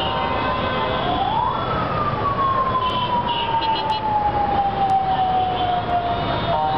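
A siren winding up quickly and then slowly falling in pitch over several seconds, over the steady noise of heavy street traffic.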